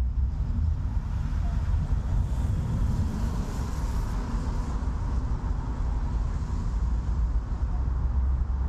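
City street ambience on wet roads: a steady low rumble of traffic, with a brighter hiss for a couple of seconds near the middle.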